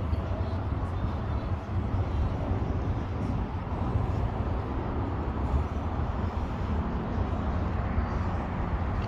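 Wind buffeting the camera microphone on a moving boat: a steady, fluttering noise, heaviest in the low end.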